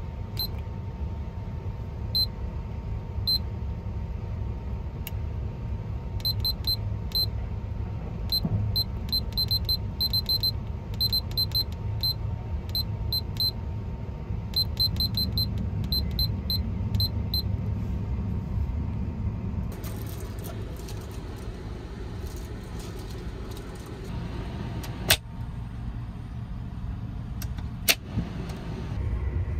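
Sleeper-train compartment alarm clock beeping with each button press as the wake-up time is set: short high beeps, singly and in quick runs, over the steady low rumble of the moving train. The beeps stop partway through, and two sharp clicks follow near the end as the air-vent slider is moved.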